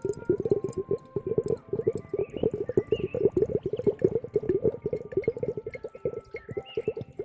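ASMR triggers from a translucent ball-shaped object being squeezed and handled by hand, a fast, continuous run of soft clicks and squeezes, many a second.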